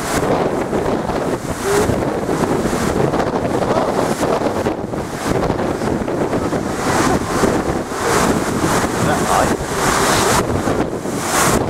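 Storm waves surging and crashing against a sea wall, with strong wind buffeting the microphone; the rush of water swells louder several times.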